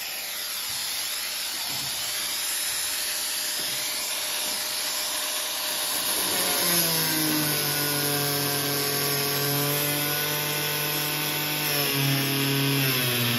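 Handheld electric angle grinder with a thin cut-off disc cutting along a metal sheet: a steady high hiss of the disc in the metal. From about six seconds in, the motor's lower hum comes through, its pitch wavering slightly as the load on the disc changes.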